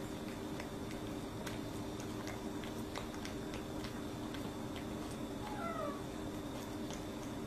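Ragdoll cat eating from a stainless steel bowl, with faint scattered clicks of chewing, and one short meow falling in pitch about five and a half seconds in, over a steady low hum.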